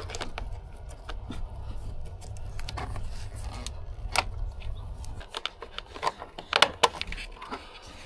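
Plastic wiring-harness connectors clicking and rattling as they are handled and pulled out through the access hole in the car body, with a few sharper clicks about four seconds in and again near the seven-second mark.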